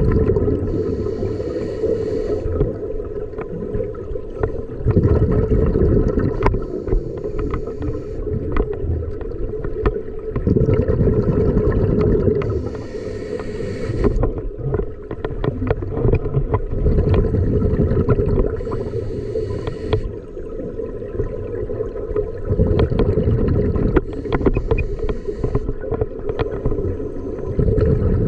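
Scuba breathing heard underwater: a regulator hissing on each inhale, about every five to six seconds, with bubbling, clicking exhaust bubbles and a low water rumble between breaths.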